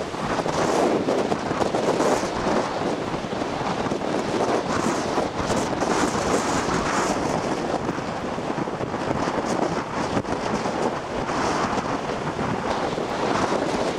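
Gusty wind buffeting the microphone over the steady rush of storm surf breaking on the shore, rising and falling in strength.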